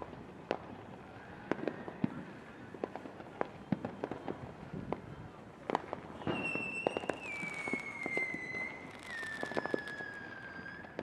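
Distant fireworks display: scattered pops and bangs at irregular intervals. From about six seconds in, a high whistling tone joins and slides down in pitch in steps to the end.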